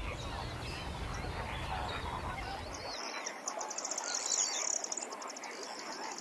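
Many wild birds calling at once, short overlapping calls from a flock, with a high rapid trill joining in about halfway through. A low rumble beneath them stops suddenly about three seconds in.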